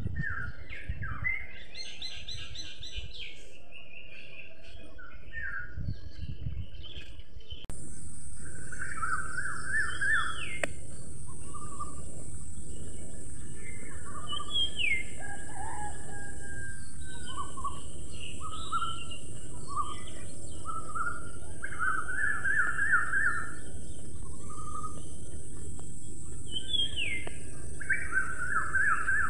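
House sparrows chirping, single chirps and quick repeated runs of chirps. About eight seconds in the recording changes and a steady high hiss runs under the chirping.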